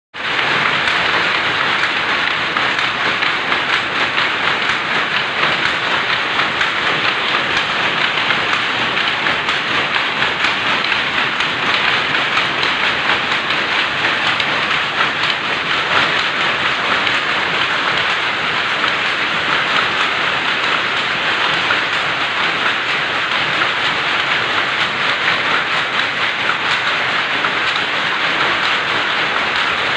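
Gauze bandage machine running steadily: a loud, continuous, dense mechanical rattle with no pauses.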